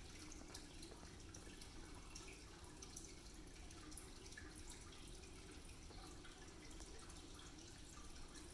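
Faint, scattered small wet clicks of a cat licking up treat crumbs from a wooden floor, over a low steady room hum.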